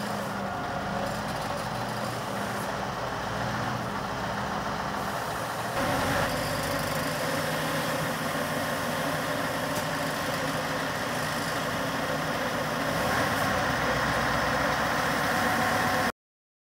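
Scania R520 truck's V8 diesel engine idling steadily. About six seconds in it gets louder and noisier, and it cuts off suddenly near the end.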